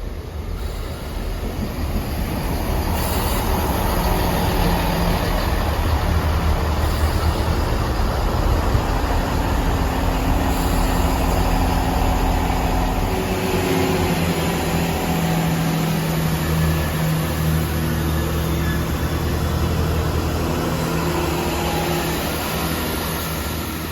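Class 166 diesel multiple unit's diesel engines running at the platform, a steady low drone whose held engine note grows stronger from about halfway through.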